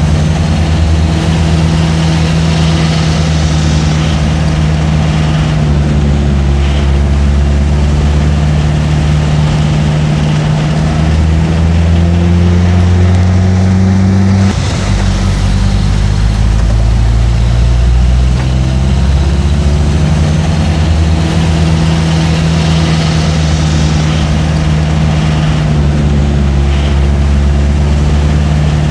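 Truck engine running at low revs, its pitch slowly rising and falling, with a sudden drop in pitch about halfway through.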